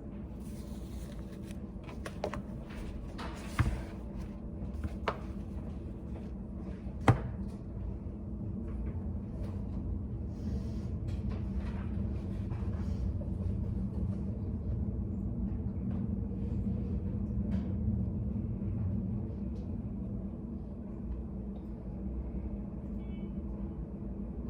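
Steady low hum of a study cafe's room ambience, with a few sharp taps and clicks from someone working at a desk, the loudest about seven seconds in, and brief light rustles.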